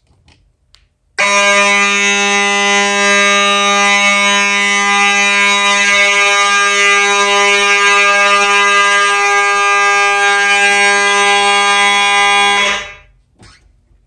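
Simplex fire alarm horns (2901-9833 and 2903s) sounding together in one continuous, unbroken buzzing tone, set off by a System Sensor 2100 smoke detector being tested. They start about a second in and stop shortly before the end as the system is reset.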